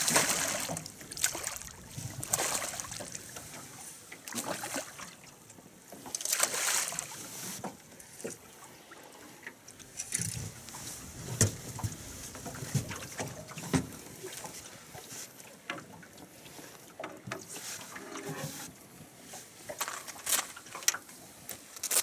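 Irregular knocks and bumps in a small fishing boat, with several short bursts of hiss.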